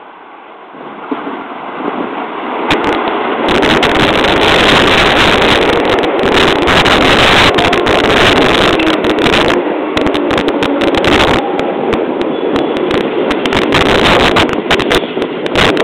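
Tobu Noda Line electric commuter train running through the station at speed, close past the platform. Its steel wheels on the rails build up over the first few seconds as it nears, then run as a loud, rushing noise, with crackling clatter, while the cars go by.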